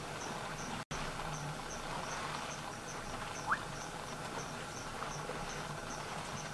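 Insect chirping in a steady rhythm, about five high chirps every two seconds, over a faint low steady hum. A brief rising whistle comes about three and a half seconds in, and the sound drops out for an instant about a second in.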